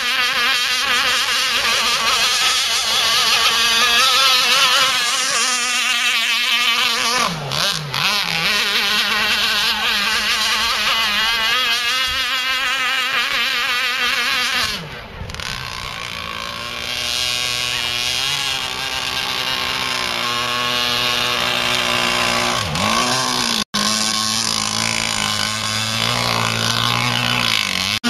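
Radio-controlled model speedboat's small motor whining at high revs out on the water, its pitch rising and falling as the boat runs and turns. The sound cuts out for an instant a little past two-thirds of the way through.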